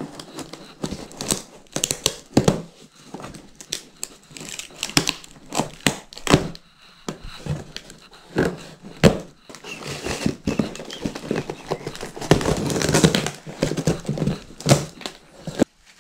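Knife slitting packing tape and plastic strapping on a long cardboard shipping box, with cardboard crinkling, tearing and knocking as the box is worked open. It goes in many short sharp cracks and scrapes, with a longer stretch of tearing and rustling in the last few seconds as the flaps are pulled apart.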